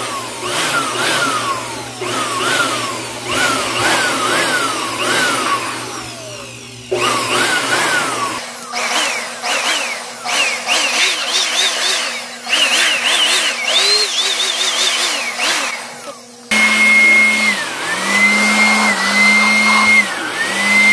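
Handheld electric blower blowing dust out of an open amplifier chassis. Its motor whine rises and falls over and over as it is pulsed on and off, and from about 16 seconds in it holds a steadier, higher whine with brief dips.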